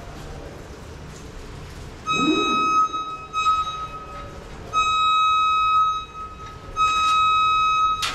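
Cordless drill run in four short trigger bursts, each with a steady high motor whine, while drilling out a hole for the deicing tank's fitment.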